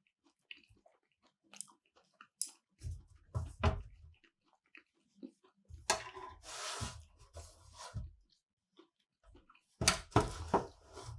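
Close-up eating sounds: keto sushi being chewed, in three bouts, with sharp clicks and knocks that are loudest near the end.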